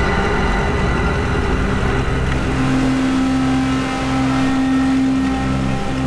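Speedboat engine running steadily as the boat moves off across the water.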